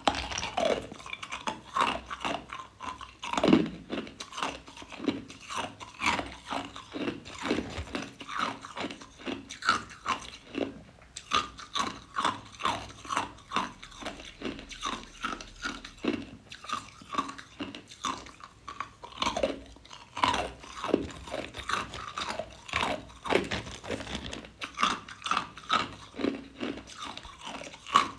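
Clear ice cubes being bitten and chewed, a steady run of sharp, irregular crunches and cracks, several a second.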